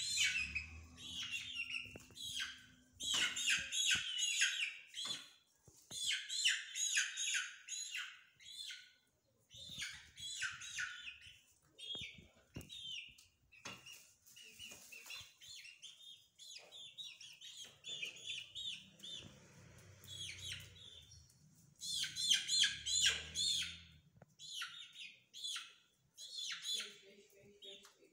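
Young chickens peeping in bursts of rapid, high-pitched calls, with short quieter gaps between the bursts.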